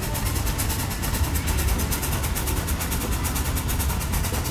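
1899 American Fire Engine Company steam pumper at work, pumping water to a tall hose jet. Its steam pump beats out a rapid, even chuffing over a low rumble.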